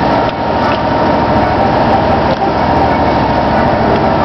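A boat's engine droning steadily, heard from the deck under a constant rushing noise.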